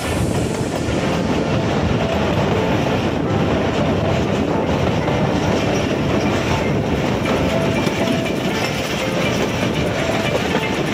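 Running noise of a passenger train heard from a carriage window: a steady rumble and rattle of wheels on the rails, holding an even level throughout.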